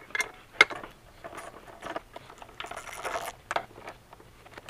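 Irregular light metal clicks and taps as the cast metal valve cover of a Honda EU2000i generator engine is handled and seated back onto the cylinder head, with a brief scrape about three seconds in.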